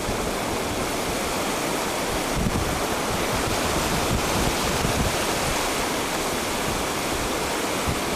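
Ocean surf rolling onto the beach, a steady rushing wash, with wind gusting across the microphone in low rumbles.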